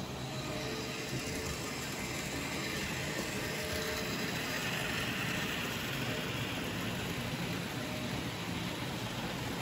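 Märklin H0 model trains running on the layout's track: a steady wheel and motor noise that grows louder around the middle as a model steam locomotive passes close.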